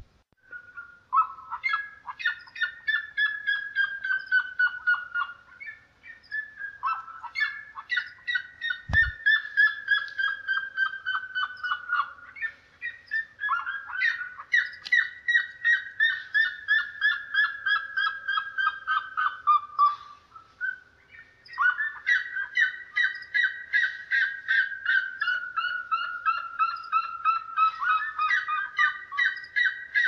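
Red-legged seriema calling: long series of rapid, loud notes that slide down in pitch, repeated in phrases several seconds long, with a second series overlapping at a slightly different pitch in the last third. A single dull thump about nine seconds in.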